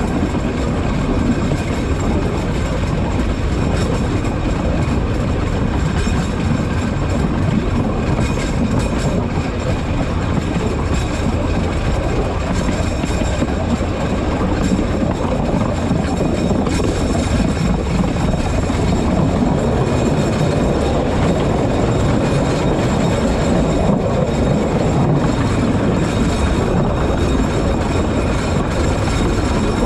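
Alishan Forest Railway narrow-gauge train running along the track, a steady noise of wheels on rails and the train's motor.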